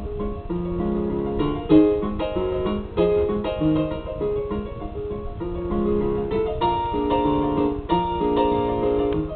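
Blues piano music: a piano playing a tune of changing notes and chords.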